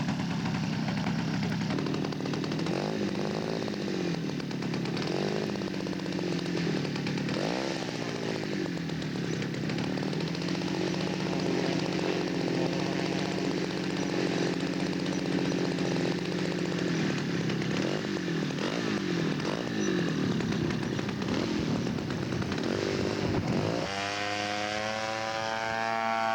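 Engine of a radio-controlled scale P-40 model aircraft idling, with several brief throttle blips that rise and fall in pitch. Near the end it opens up to full throttle for the takeoff run.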